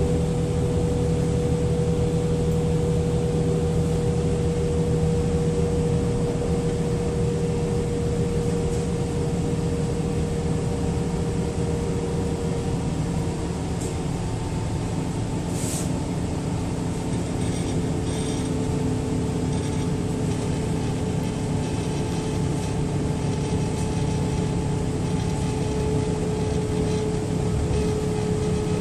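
DB Class 426 electric multiple unit giving off its steady electrical whine over a low rumble, the sound that earned it the nickname "Quietschie". About halfway through the whine drops slightly in pitch, and just after that there is one short, sharp hiss.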